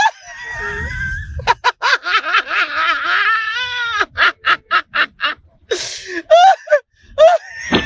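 A comedy sound-effect clip of a voice screaming and cackling: a long shrill, wavering cry in the middle, with quick bursts of laugh-like yelps on either side.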